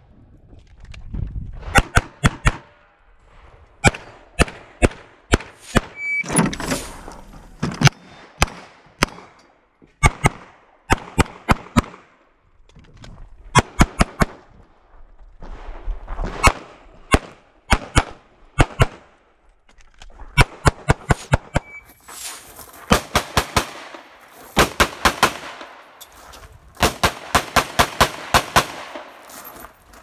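Rapid strings of pistol shots from a compensated CZ 75 TS Czechmate 9mm competition pistol, several shots a second in runs of about three to eight, with short pauses between the strings as the shooter moves between targets.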